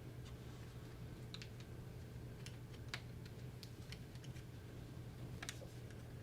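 Faint, irregular small clicks and taps of wiring and plastic parts being handled and pressed into a nail gun's plastic housing, over a steady low hum.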